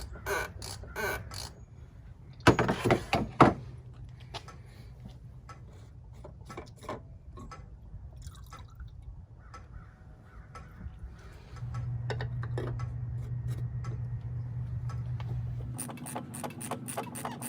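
Hand-tool work on a diesel truck's fuel filters: a ratchet clicking at first, a loud metallic clatter about two and a half seconds in, then small clinks with liquid dripping as fuel drains from the filter housing. A steady low hum comes in for the last few seconds.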